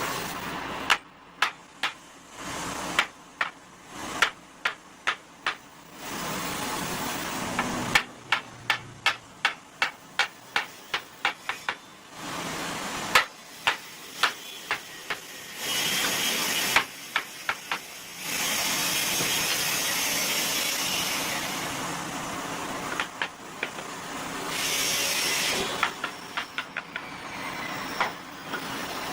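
Workshop sounds from work on a wooden door: runs of sharp knocks, several a second with short pauses between runs, then stretches of steady hiss, with a few more knocks between them.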